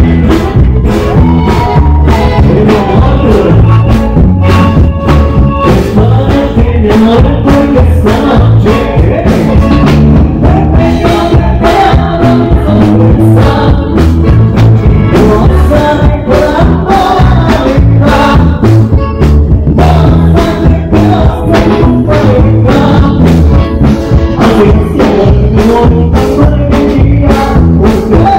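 Live norteño band playing loudly through the PA: saxophone, guitars and a drum kit keep a steady dance beat, with a singer on the microphone.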